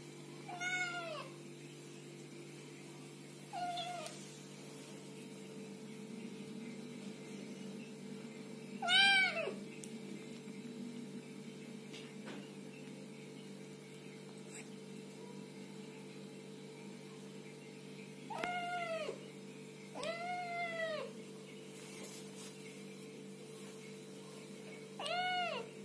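A young kitten meowing six times, each meow short and arching up then down in pitch, with long pauses between them; the loudest comes about nine seconds in.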